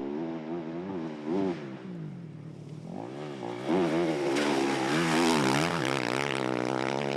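Rally vehicle engine revving, its pitch rising and falling again and again as the throttle is worked over rough ground, with a rushing hiss joining in after about four seconds.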